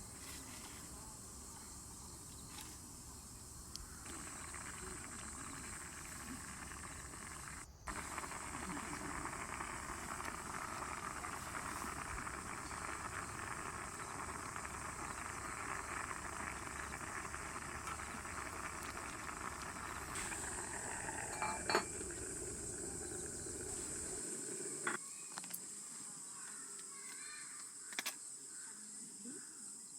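Camp cooking: food sizzling in a pan, with a few sharp clinks of utensils or dishes. The sound changes abruptly twice, as if several short clips were joined.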